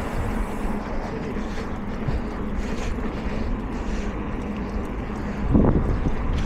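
Steady outdoor rumble of wind and traffic on the microphone, with a louder swell about five and a half seconds in.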